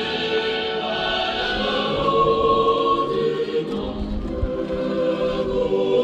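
Choral music: a choir singing long held notes.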